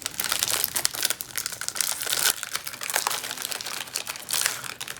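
Snack wrapper crinkling and tearing as a packet of chocolate cookies is opened by hand, an irregular run of crackles that eases off near the end.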